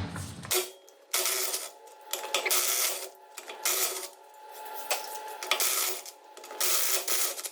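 17 mm wheel bolts being undone and pulled out: metallic rattling and clinking in about six short bursts.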